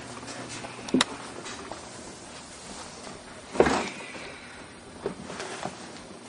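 A sharp click about a second in, then a louder thud with a short ringing tail past halfway, and a couple of faint knocks, over a quiet background hiss.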